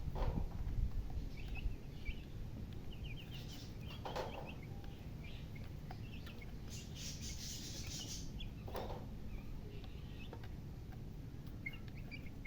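Chicks peeping in short quick runs of high chirps, with a hen's lower calls a few times, about four and nine seconds in, over a steady low rumble.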